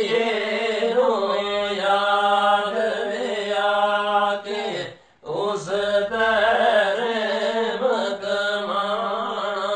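Two men singing Pahari kalam, devotional verse, in a slow chant with long held notes over a steady low tone. The singing breaks off for a moment about halfway through, then picks up again.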